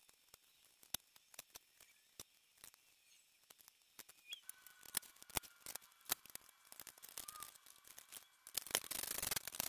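Faint, scattered clicks and taps of a paintbrush working paint onto square steel tubing. Near the end a louder, steady rubbing and handling noise begins as a caster wheel is fitted to the tube.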